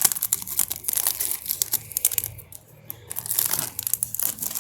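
Hockey card pack wrapper crinkling and tearing as it is opened by hand, in dense rapid crackles with a brief lull midway.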